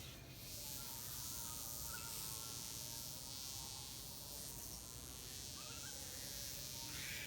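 Wasp with drooping wings buzzing steadily, unable to take off.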